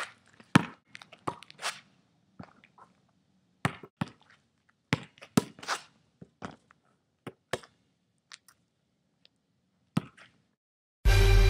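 A basketball being dribbled and shot: about a dozen short, sharp thuds at irregular intervals. Loud music with a beat starts near the end.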